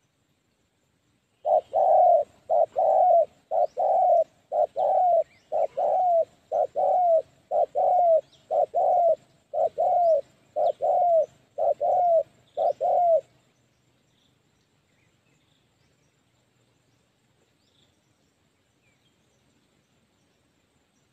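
Spotted dove cooing: a steady run of paired coo notes, roughly one pair a second, each note falling in pitch at its end, stopping suddenly about thirteen seconds in.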